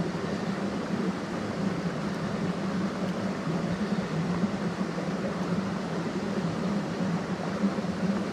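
Mountain stream water rushing steadily, an even hiss with a low wavering rumble underneath.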